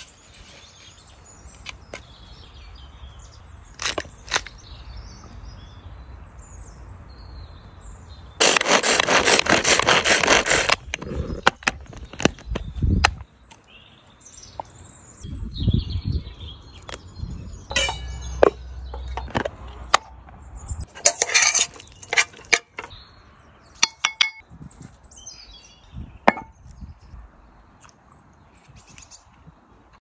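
Hand-pulled cord food chopper yanked repeatedly for about two seconds starting some eight seconds in, a loud whirring rattle as its blades spin through wild garlic, sorrel and parmesan. Around it, scattered light clicks and knocks of handling, with birds chirping in the background.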